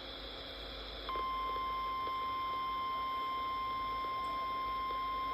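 NOAA Weather Radio 1050 Hz alert tone, a single steady beep that comes on about a second in after faint radio hiss and holds at one pitch and level. It is played through a RadioShack 12-261 weather radio and follows the SAME data header, signalling that the spoken alert is about to be read.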